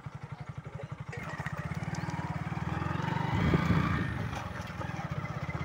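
Motorcycle engine running at a steady pace, with a fast even pulse from the exhaust, getting louder about a second in. Tyres rolling over a loose gravel road add a hiss.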